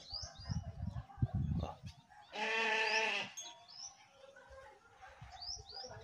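A goat bleats once, a quavering call about a second long, a little over two seconds in, with short high bird chirps around it. Low thumps and rumbling fill the first two seconds, with one sharp knock about a second in.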